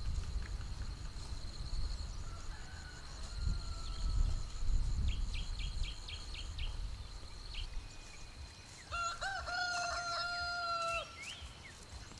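A rooster crows once near the end, one long call held about two seconds. Short bird chirps come earlier, over a steady high-pitched whine.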